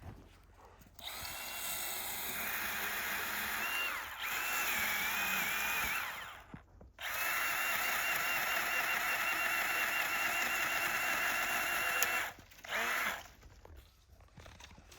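Small Milwaukee battery-powered pruning chainsaw running in several bursts of a few seconds each, a steady high motor whine that stops and restarts between cuts.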